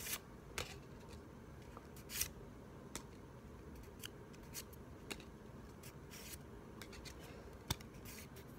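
Trading cards being slid one by one off a small hand-held stack: faint paper swishes and light ticks, roughly one a second.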